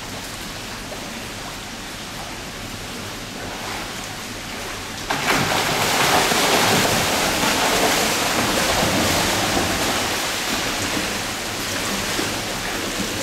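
A swimmer's deep-water race start in a pool: a steady wash of water noise, then about five seconds in a sudden loud burst of splashing as he explodes into freestyle. The splashing of his kicks and arm strokes carries on and slowly fades as he swims off.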